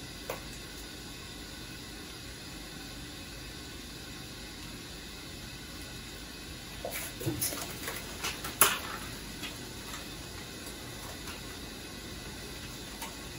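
Foil tape and its paper backing being handled: a short run of crackles and one sharp snap about seven to nine seconds in. Under it runs a steady hiss and hum of mechanical-room equipment.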